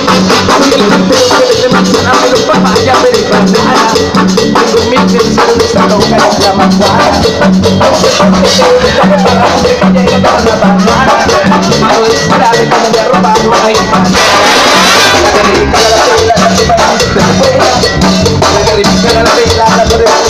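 Live brass band playing upbeat Latin dance music: trumpets, trombones and saxophones over drum kit and bass, with a steady beat.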